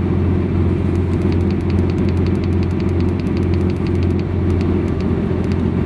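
Steady low drone of a running DAF CF65 refrigerated truck, with a run of light rapid ticks, about four a second, from about a second in until near the end.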